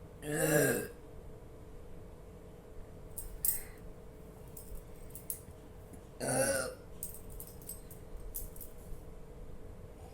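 Two loud, short burps about six seconds apart, brought up by gulping fizzy Thums Up cola. Faint clicks come between them.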